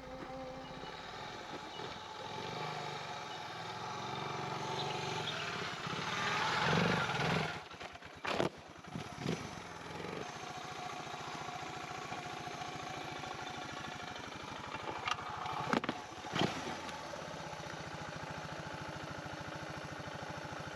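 Motorcycle engine revving on a steep climb, loudest about six to seven seconds in, then dropping back to a steady idle. A few sharp knocks and clatters come over the idle.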